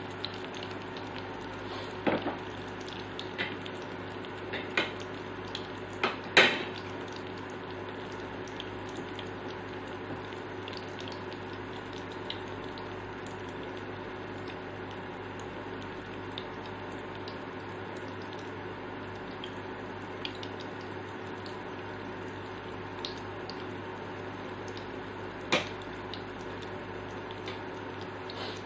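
Eggplant omelettes frying in oil in a nonstick pan: a steady sizzle. A metal utensil clicks against the pan a few times in the first seven seconds, loudest about six seconds in, and once more near the end.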